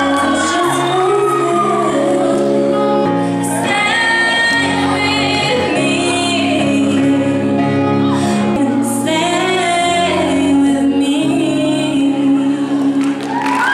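A teenage girl singing solo into a handheld microphone over sustained accompaniment chords, holding long notes.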